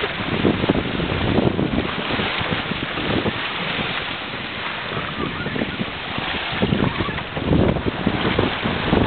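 Wind buffeting the microphone over the steady rush of sea water washing along a reed boat's hull.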